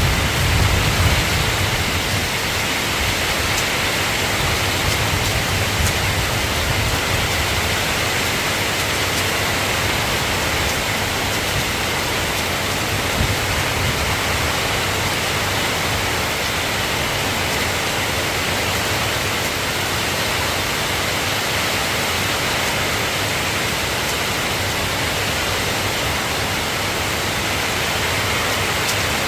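Soft rain falling steadily, an even hiss. A low thunder rumble dies away over the first couple of seconds.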